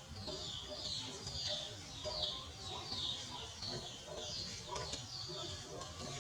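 Small bird chirping steadily: short, high, falling chirps repeated about two to three times a second.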